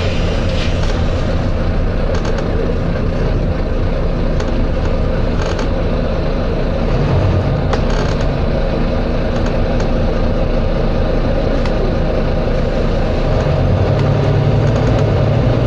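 Volvo B9TL double-decker bus's diesel engine running steadily, its low engine note strengthening near the end.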